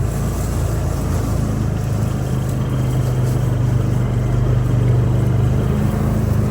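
Vehicle engine running steadily at low speed, a continuous low drone that firms up a little about two seconds in.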